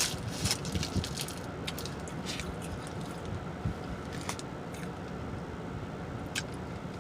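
Close-miked chewing of a mouthful of sandwich, with wet smacking clicks that come thickest in the first two seconds and then thin out to a few single smacks. Underneath is a steady low hum.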